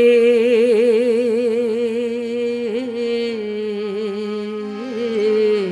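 A woman singing one long held note with wide vibrato, in Powada-style folk singing, over a steady harmonium drone. The pitch steps down slightly about three seconds in and is held again to the end of the phrase.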